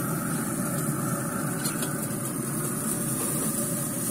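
Pellet grill running with a steady mechanical hum, under a steady high hiss of steaks sizzling on the hot grates.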